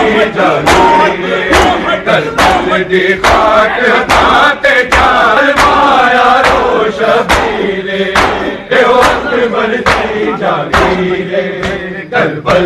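Crowd of men chanting a noha refrain in unison while doing matam, striking their bare chests together in a steady beat of sharp slaps about every 0.8 seconds.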